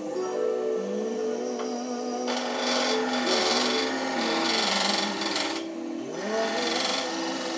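Wooden leg spinning on a wood lathe as a hand-held tool or abrasive rubs against it, a rasping scrape on the wood that starts about two seconds in and breaks off briefly near six seconds.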